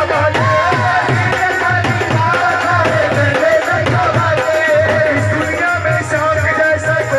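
Devotional Holi folk music: a steady drum beat and jingling rattle-type percussion under a wavering melody line.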